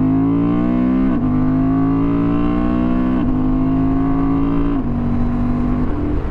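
Honda Transalp 750's parallel-twin engine accelerating hard through the gears. The pitch drops at each of four upshifts and climbs again between them.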